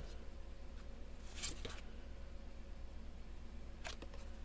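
Faint handling of trading cards and pack wrapper: a couple of soft brushing rustles, one about a second and a half in and another near the end, over low room hum.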